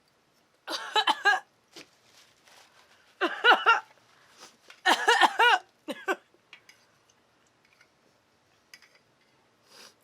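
A woman's wordless voice in three short bursts, each broken into quick pitched pulses, with a smaller one after.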